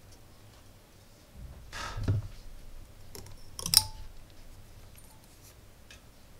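Handling noise at a workbench: a soft rustle and bump, then about three and a half seconds in a single sharp metallic click with a brief ring, as a helping-hands alligator clip is opened to free the soldered metal plate.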